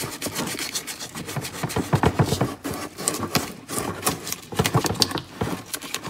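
Sandpaper rubbed by hand against the inside edges of an opening in plastic console trim, in quick, uneven back-and-forth strokes. The plastic is being scuffed so that glue will bond to it.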